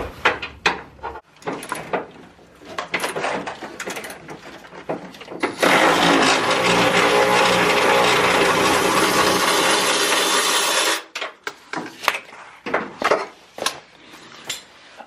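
Milwaukee cordless electric ratchet running steadily for about five seconds to spin a bumper bolt off a pickup, starting and stopping abruptly, with clinks and knocks of sockets and metal before and after.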